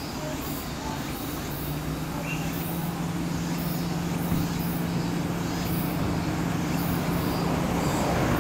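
Road traffic approaching: a steady engine hum grows gradually louder as a bus and a car come along the road. A faint, rhythmic high-pitched chirping runs above it.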